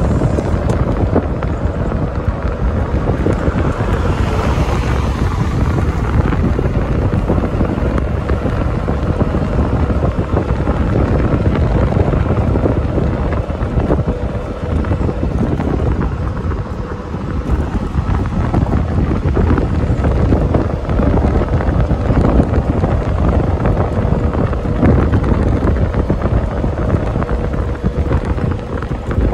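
Wind buffeting the microphone on a moving golf cart, a steady low rumble, with the cart's running noise and a faint steady hum beneath it.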